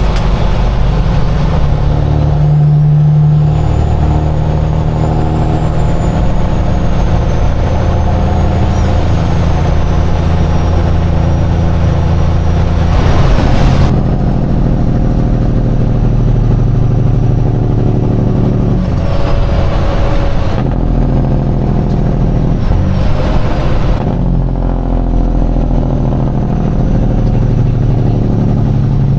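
Peterbilt semi truck's diesel engine running under way, heard from inside the cab. Its note and load change several times, with a brief louder rush about 13 seconds in.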